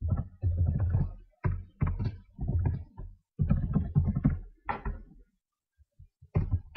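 Typing on a computer keyboard: quick bursts of dull, knocking keystrokes with a short pause about five and a half seconds in.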